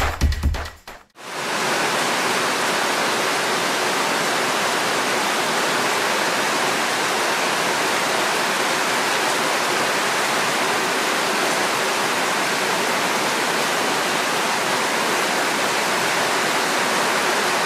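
Steady rushing of water: an even hiss at a constant level that does not change.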